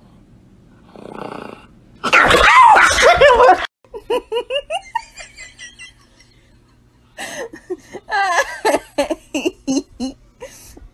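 A loud, harsh burst of sound about two seconds in, then human laughter in rapid repeated bursts, pausing briefly and starting again.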